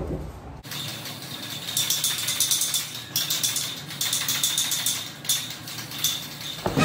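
Aerosol spray paint can hissing in several bursts of about a second each, with short gaps between them, as paint is sprayed onto a wall.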